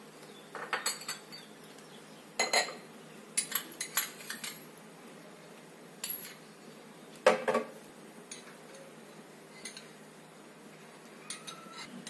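Steel spoons clinking against small glass bowls and steel cookware as ingredients are handled: scattered short clinks, the loudest about seven seconds in.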